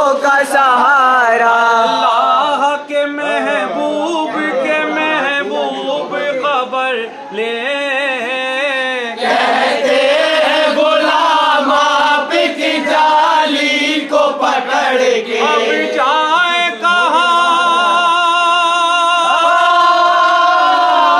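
A group of men singing a devotional Urdu chorus together in unison, their voices rising and falling through the phrases. In the last few seconds they settle onto a long held note.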